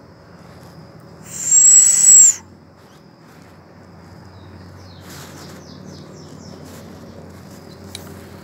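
A high, thin whistle held for about a second and dipping slightly at its end, the call of a mico (a small Amazonian monkey in the marmoset and tamarin family). A few faint, short chirps follow later over a low forest background.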